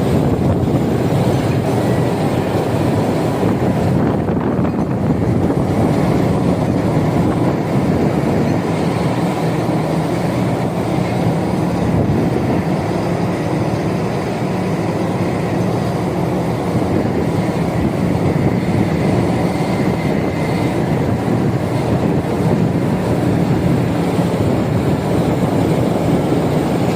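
Shore crane working a load of steel scrap: a loud, steady mechanical running noise that holds without a break.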